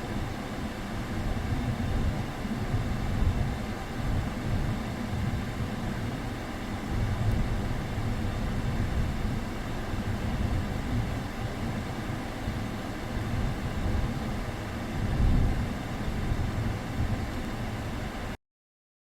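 Steady low rumble of a car running, which stops abruptly near the end.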